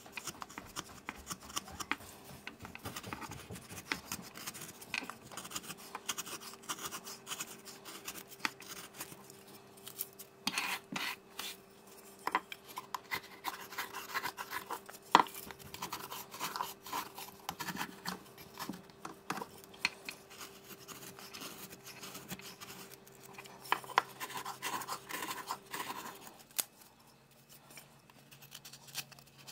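Carving knife shaving curls off a wooden spoon blank: irregular scraping and slicing strokes with small clicks as the blade bites and slips off the wood.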